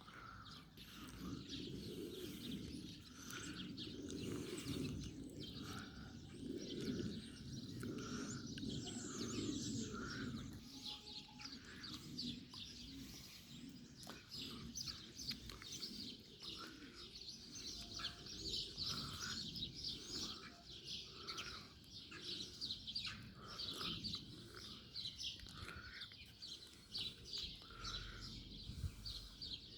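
A chorus of many small birds chirping, dense rapid high chirps with repeated shorter lower notes mixed in, over a low rumble that is strongest in the first ten seconds or so.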